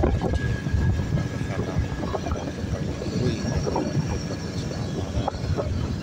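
Vehicle ride noise: a steady low engine and road rumble with wind buffeting the microphone while moving along a road.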